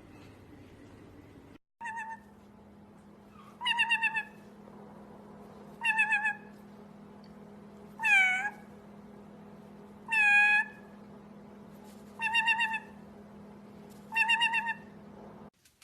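A pet animal giving meow-like calls, seven in a row about two seconds apart, each under a second long, some dipping in pitch and rising again, over a steady low hum that stops near the end.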